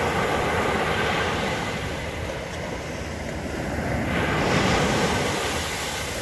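Sea surf washing onto the beach, with wind buffeting the microphone; a wave surges up about four seconds in.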